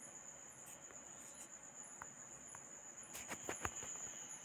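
Faint, high-pitched steady insect trill, like crickets, with a few soft taps in a quick cluster a little after three seconds in.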